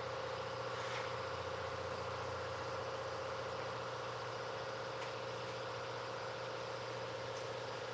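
Steady mechanical hum of a running motor, with one constant mid-pitched tone that holds level throughout.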